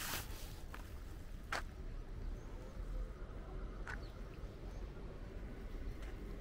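Outdoor ambience: a steady low rumble with a few sharp clicks, one about a second and a half in and another about four seconds in.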